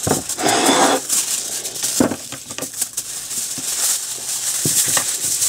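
Aluminium foil being unrolled from its roll and handled, a continuous crinkling rustle with a few sharp clicks and taps.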